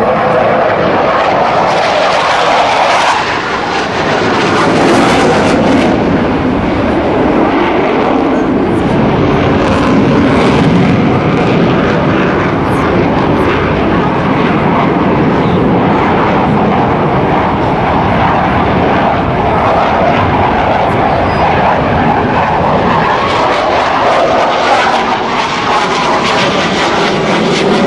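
McDonnell Douglas F/A-18 Hornet twin-engine jet flying a display pass: loud, steady jet engine noise that rises and falls slowly as the aircraft moves.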